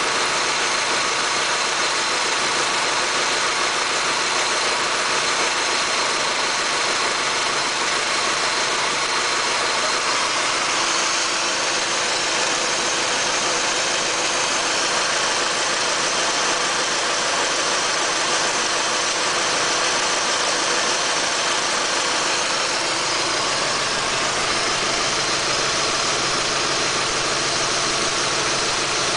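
Audi A4 B6 engine idling with a misfire.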